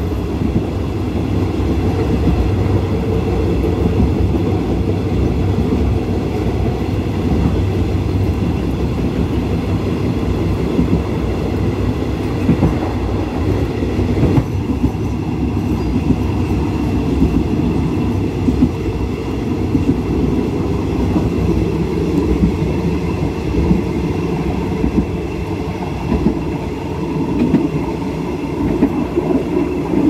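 Passenger train running along the track, heard from aboard a moving carriage: a steady loud rumble with irregular wheel clatter over the rails.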